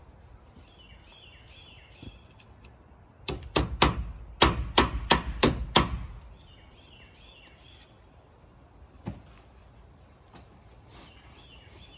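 A quick run of about nine sharp hammer blows on wood, roughly three a second, a few seconds in. A bird chirps in short repeated phrases before and after.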